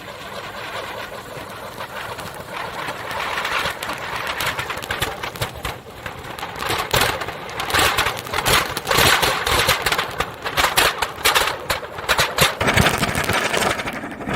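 Anar firework fountain burning: a rushing hiss that swells over the first few seconds, then turns into rapid, dense crackling for the second half.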